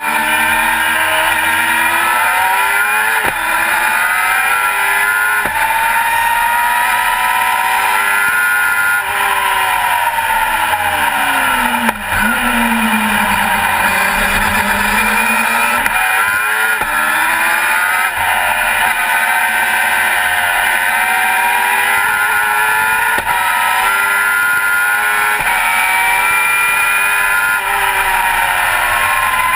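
Onboard sound of a Global GT Light sports-prototype race car's engine at racing speed. It revs up through the gears with quick upshifts in the first few seconds, drops in pitch while slowing for a corner about twelve seconds in, then climbs again. Heavy wind and road noise run underneath.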